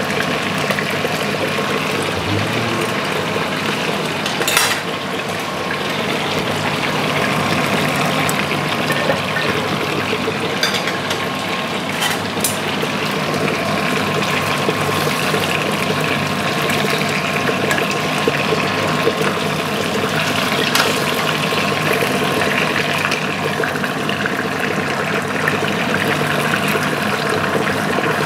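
Veal liver frying in hot fat in a pan: a steady, loud sizzle with a few sharp pops.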